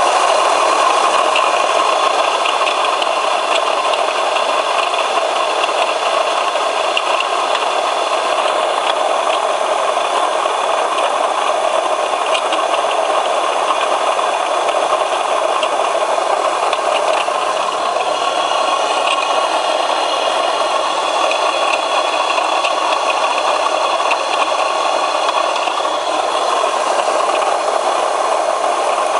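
Opel X30XE 3.0 V6 engine running steadily with a continuous rattling knock, which the owner puts down to a failing water pump.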